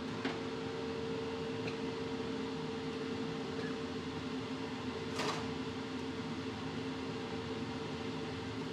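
Steady hum of kitchen machinery with a hiss behind it, and a short sharp click about five seconds in.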